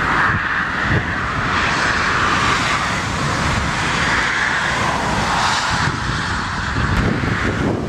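Jet airliner's engines running as it lands in a strong crosswind, with gusty wind buffeting the microphone.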